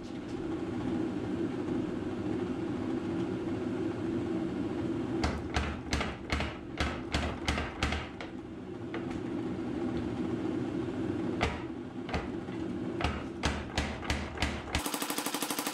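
Power hammer running with a steady hum, then striking a glowing steel bar between its dies in a series of uneven blows from about five seconds in. Near the end the blows come in a fast, even run.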